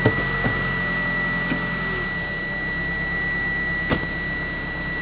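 Toyota Camry's engine idling while the six-speed automatic's gear selector is moved through its positions, with a few sharp clicks from the shifter, to circulate freshly added transmission fluid. Over it runs a steady high-pitched warning tone, which the owner puts down to the hood being open.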